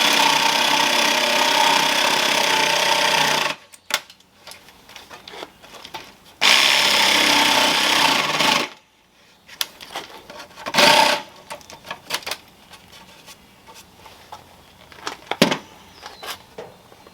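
A handheld power tool runs in two bursts as the pine is trimmed, the first about three and a half seconds long and the second about two. Then come scattered wooden knocks and rubs as the pieces of the chair are fitted together.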